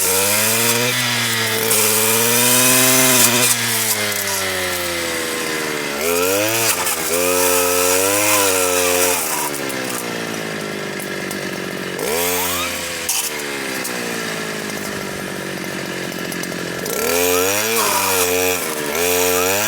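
Stihl KA 120 R's small two-stroke engine spinning a circular saw blade fitted with chainsaw teeth, sawing wood. It revs up high several times, sagging under load and dropping back toward a lower speed between bursts.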